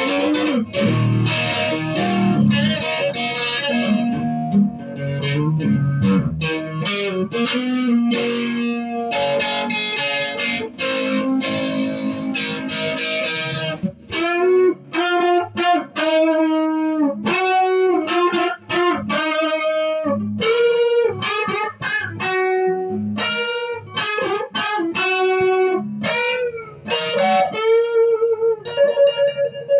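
Electric guitar played through a 1969 Sound City valve amp: chunky chord riffing for the first half, then single-note lead lines with string bends, ending on a held chord.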